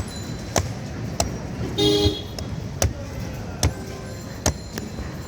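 Coconut being chopped with a blade: six sharp strikes at uneven spacing, roughly half a second to a second apart. A vehicle horn honks briefly about two seconds in.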